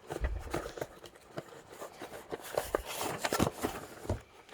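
Hands handling ammunition boxes and packaging: irregular rustling with many small clicks and knocks.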